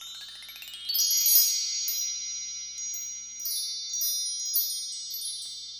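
Shimmering chime sound effect: a rising sweep over the first second, then high bell-like tones that ring on, with scattered tinkles above them.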